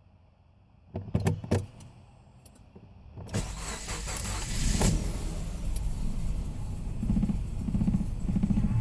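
A few clicks about a second in, then a 2009 Subaru Impreza's flat-four engine is cranked and catches at about three seconds, settling into a rough, uneven idle. The rough idle persists despite a new catalytic converter, coil packs and spark plugs, and two injectors replaced and two cleaned.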